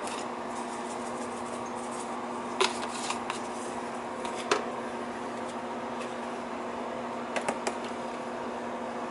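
A few short, light clicks and taps from a seasoning shaker being handled as oregano seasoning is shaken over rice in a stainless steel pot: the first about two and a half seconds in, another about four and a half seconds in, and a quick cluster near the end. Under them runs a steady mechanical hum.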